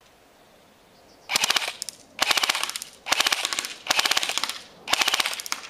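SRC M4A1 electric airsoft rifle (AEG) firing on full auto in five short bursts, each a rapid rattle of shots lasting well under a second, starting about a second in.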